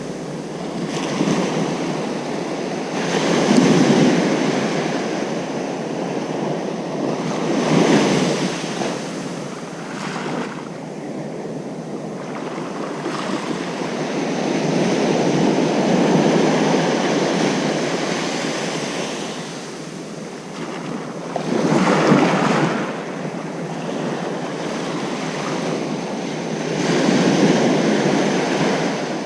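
Ocean surf on a sandy beach: waves breaking and washing up the shore one after another, the rushing sound swelling and falling every four to six seconds, with louder breakers about four, eight, twenty-two and twenty-eight seconds in.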